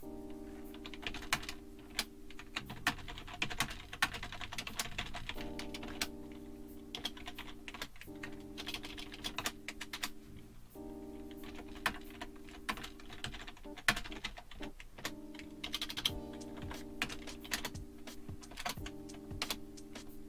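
Typing on a computer keyboard in irregular runs of keystrokes, over background music of held chords that change every few seconds.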